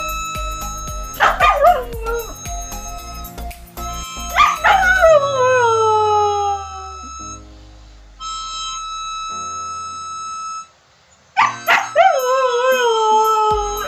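Siberian husky howling three times, each howl starting high and sliding down, the middle one the longest. Background music plays throughout.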